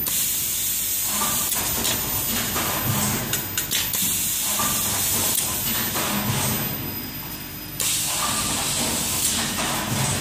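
Semi-automatic rigid box folding machine running, with a loud, steady hiss and a low thump repeating about every second and a half as it cycles. A few sharp clicks come about a third of the way in, and the hiss drops out briefly near the end.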